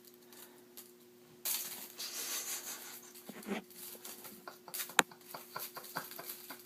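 Kittens scuffling and playing: light rustling and scratching with scattered small ticks and one sharp click about five seconds in, over a steady electrical hum.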